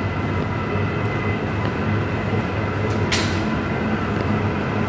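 Steady low hum and rumble of an underground MRT station passageway, with faint footstep ticks and a brief hiss about three seconds in.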